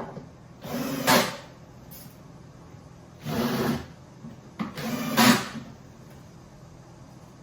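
A drawer on metal slide rails being slid in and out three times, each stroke a short scraping run of about half a second to a second.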